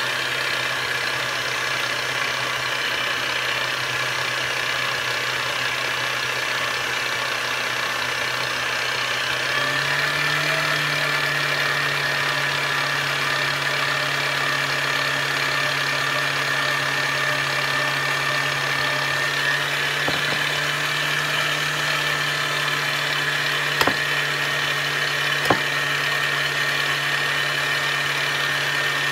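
Electric mixer motor running steadily as it beats cake batter, a hum with a higher whine over it; about a third of the way in its pitch steps up a little. Two short clicks near the end.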